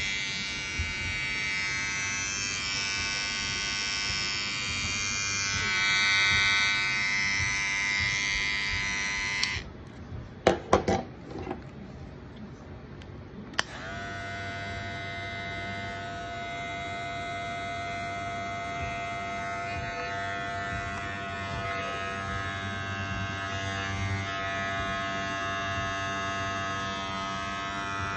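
Vetmor cordless hair clipper running with a steady electric buzz; it is switched off about ten seconds in, a few handling clicks follow, and about four seconds later it is switched on again and keeps running.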